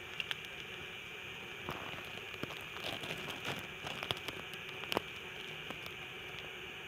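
Steady outdoor background hiss, with a scattering of light clicks and ticks from about two to five seconds in.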